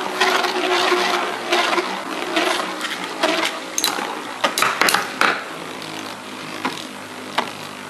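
Two Beyblade metal-fight spinning tops, Lightning L-Drago and Meteo L-Drago, whirring as they spin in a plastic stadium, their metal wheels clashing in sharp clicks and clacks. A quick run of loud hits comes about four and a half to five seconds in, with fewer and fainter knocks after.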